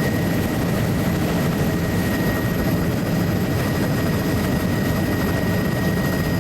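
Steady engine drone of a low-flying survey aircraft cruising at about 80 mph, heard from inside the cabin, with a thin steady whine running through it.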